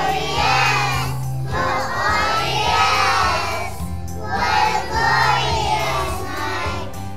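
A group of pre-K children singing a song together over an instrumental accompaniment, in phrases broken by short pauses.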